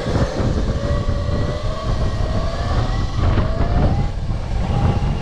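Electric dirt bike motor whining while riding, over heavy wind rumble on the microphone. The whine climbs slowly in pitch, dips about three seconds in, then climbs again as the bike speeds up.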